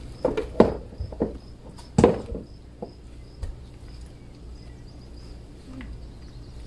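Scattered light clicks and knocks of plates, cutlery and mussel shells being handled while eating, the loudest about two seconds in, over a low steady rumble.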